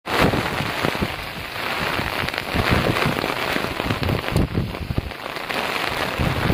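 Heavy rain falling steadily, with irregular low gusts of strong wind hitting the microphone.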